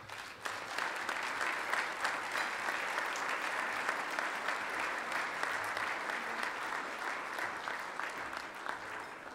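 An audience applauding, building quickly at the start and tapering off near the end.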